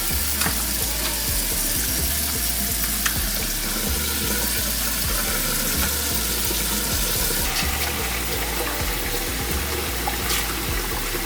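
Kitchen tap running steadily into a bowl while a raw lobster tail is rinsed clean under the water; the splashing changes in tone about seven seconds in.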